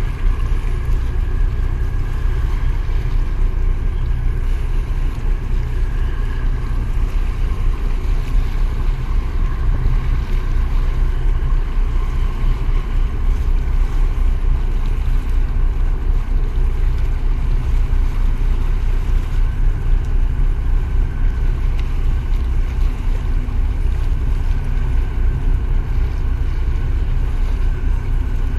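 Steady engine drone with a faint whine from a harbour tug pushing against the side of a large container ship, under a constant low rumble of wind buffeting the microphone.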